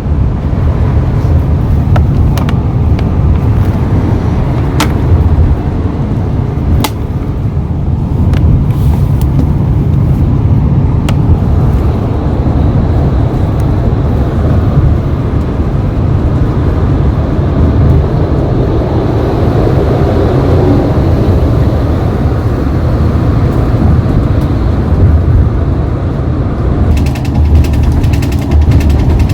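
Steady low rumble of a moving coach's engine and tyres, heard from inside the passenger cabin, with a few sharp clicks and rattles.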